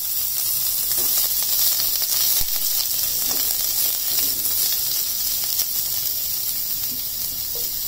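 Sliced onions sizzling in hot oil in a pan, a steady high hiss with faint crackles.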